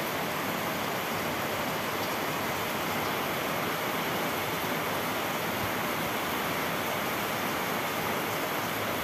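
Heavy rain pouring down: a steady, even hiss of downpour.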